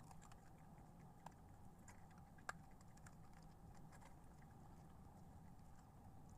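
Near silence with faint, irregular small clicks and ticks, one sharper click about two and a half seconds in, over a faint steady hum.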